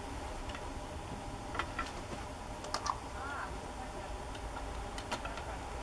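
A few scattered sharp clicks or taps over a steady low background rumble, with one brief wavering chirp in the middle.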